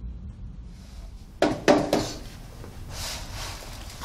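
Two sharp knocks close together about a second and a half in, from soil-testing equipment being handled, then a soft rustle near the end.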